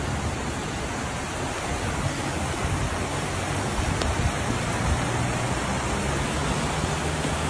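Muddy floodwater rushing across a road in a fast, steady flow.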